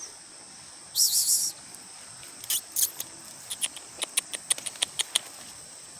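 Steady high-pitched insect chirring from the surrounding vegetation, with a brief loud rustle about a second in and then a quickening run of crisp crackles: footsteps on dry leaf litter while walking downhill.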